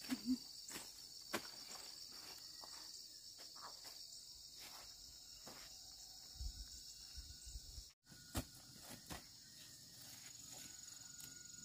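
Insects chirring in a steady, high-pitched pulsing trill, with scattered light knocks and rustles of footsteps and handling among the vines.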